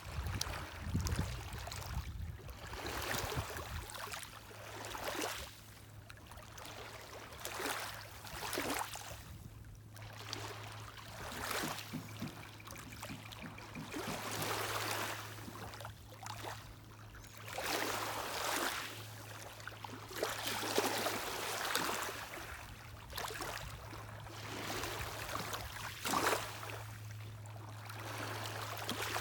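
Small lake waves lapping and splashing against the shore, one wash every second or two. A steady low drone of a boat engine sets in about four seconds in and continues underneath.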